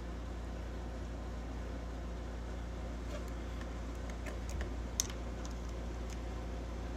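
Steady low hum, with a few light clicks and one sharper click about five seconds in.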